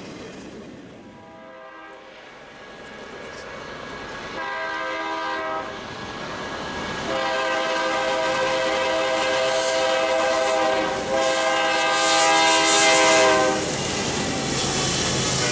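BNSF diesel freight locomotive's air horn sounding a series of blasts as the train approaches, growing louder, the longest about three seconds. After the last blast the lead locomotives rumble past close by.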